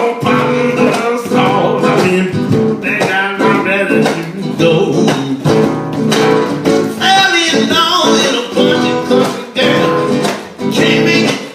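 Live band music: strummed acoustic guitar with drums, playing an instrumental passage of a country-style song.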